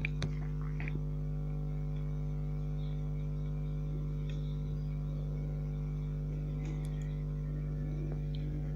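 Steady low hum made of several fixed tones, unchanging throughout, with no speech.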